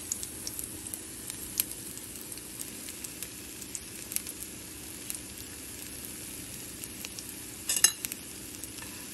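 Battered banana slices frying in a little oil in a pan: a steady sizzle with scattered small pops of oil, and a brief louder burst of crackling near the end.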